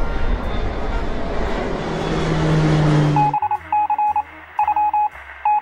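A jet airliner sound effect: a rush of engine noise that grows louder and then cuts off suddenly about three seconds in. It is followed by a single high electronic tone beeping in quick groups of short and longer beeps, sent as Morse code.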